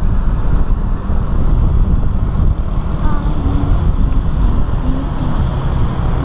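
Steady running and road noise of a moving vehicle heard from on board, with wind buffeting the microphone. Faint voices come through about halfway.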